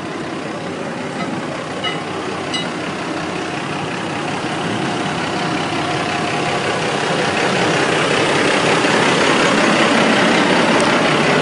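Heavy-vehicle traffic noise on a slushy highway: a semi truck's diesel engine running close by, with a dense steady rumble and hiss that grows steadily louder through the middle of the clip.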